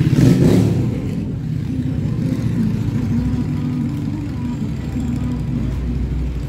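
Street traffic: a motor vehicle's engine running close by, loudest in the first second, then a steady low drone.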